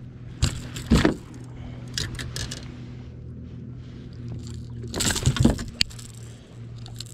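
Clicks, clinks and knocks of handling a small bass and metal fishing pliers in a boat while the hook is taken out, with a louder cluster of knocks about five seconds in, over a steady low hum.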